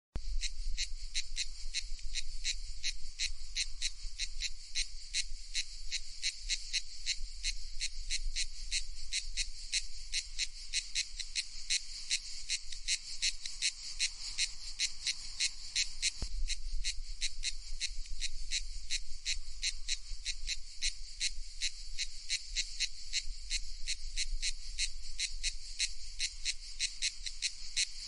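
Cicada calling: an even, unbroken train of high buzzing pulses, about three a second, starting abruptly.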